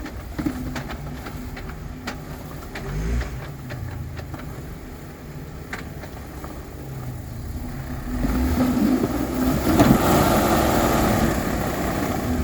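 Jeep Wrangler engine running at low revs while it crawls over boulders, with scattered knocks and scrapes, the sound of the Jeep hanging up on rock. From about two-thirds of the way in, the engine works harder and a loud rushing noise rises and stays to the end.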